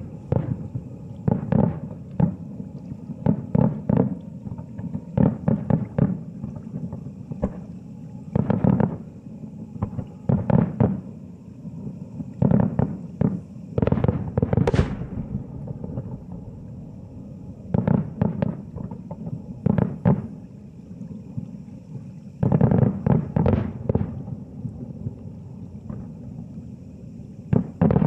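Aerial firework shells bursting in a long series of dull, low booms, often several in quick succession with gaps of a few seconds between clusters, heard from about a kilometre away.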